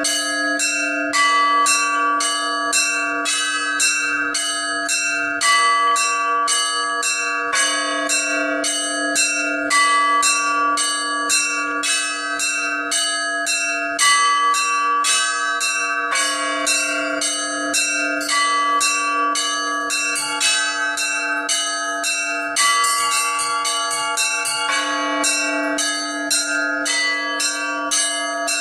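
Orthodox church bells rung by an automatic electronic bell-ringing system in a slow weekday peal: small bells struck in a steady pattern, about two to three strikes a second, over the sustained ringing of a larger bell, with heavier strokes every few seconds. A little past two-thirds through, the small bells strike in a quicker flurry.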